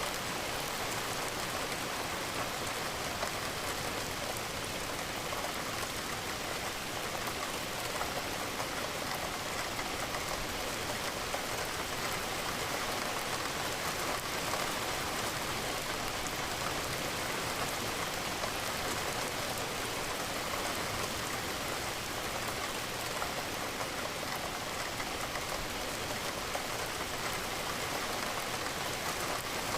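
Steady rain, with raindrops hitting window glass.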